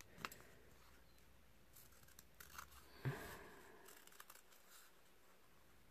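Scissors snipping through a paper template, a handful of faint cuts with light paper rustle; the clearest snip comes about three seconds in.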